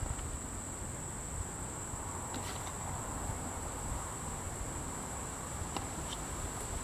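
Steady high-pitched chorus of crickets, with a few faint light clicks.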